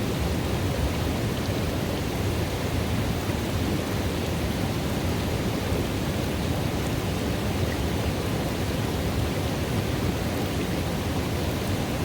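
River water running steadily into a pool: an even, unbroken rush, deepest in its low rumble.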